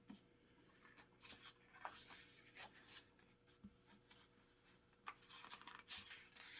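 Faint paper rustling and light handling clicks as the pages and inserts of a CD album booklet are turned and handled.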